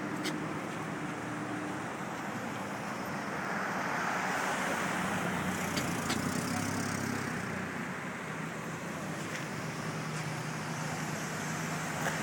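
An engine running steadily under outdoor traffic noise, with a few faint knocks.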